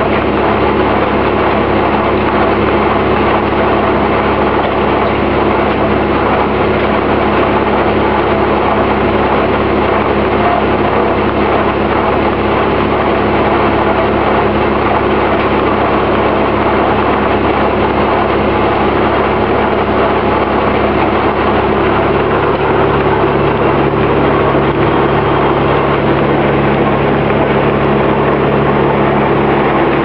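Early-20th-century Oxford Foundry & Machine Co. sawmill running steadily between cuts: its power unit and drive give an even, loud mechanical drone, with a shift in tone a little over two-thirds of the way through.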